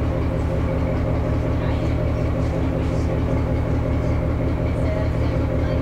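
A vehicle engine running steadily: a low rumble with a fast, even pulse.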